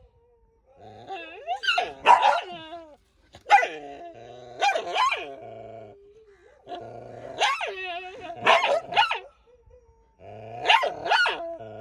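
A dog whining and yelping in four bouts. Each bout is a run of short cries over a steadier, lower whine.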